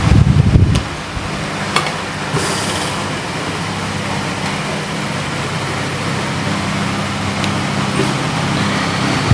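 A steady electric fan hum with a hiss, opening with a handling thump, with a few small clicks and a brief high hiss about two and a half seconds in.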